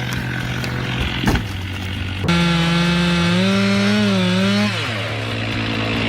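Two-stroke chainsaw running at full throttle from about two seconds in, its pitch holding high, then dropping quickly as the throttle is released. Before that, a steadier, lower machine hum.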